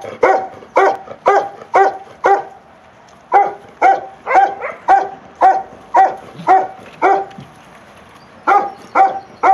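A dog barking over and over at about two barks a second, each bark short and ringing at much the same pitch, with a brief pause about three seconds in and another near the end.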